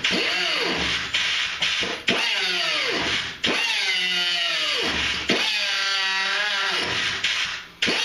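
Cutoff wheel grinding into the steel B-pillar of a 1956 Chevy, throwing sparks. The tool's whine sags in pitch each time the wheel bites into the metal and climbs back as it eases off, with several brief breaks in the cut.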